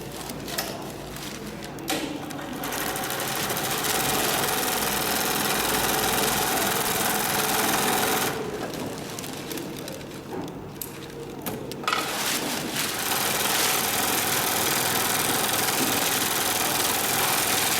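Long-arm zigzag industrial sewing machine (Durkopp Adler 72525-101) stitching at speed. It runs for several seconds, stops for about three or four seconds around the middle, then starts stitching again.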